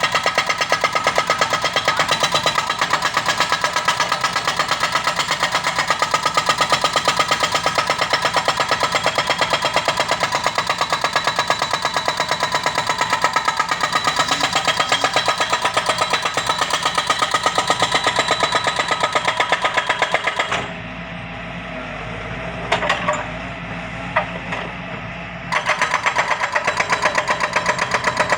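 Hydraulic rock breaker on a Doosan DX140W wheeled excavator hammering stone in a rapid, even rhythm. It stops for about five seconds in the later part, leaving the diesel engine running and a couple of knocks, then starts hammering again.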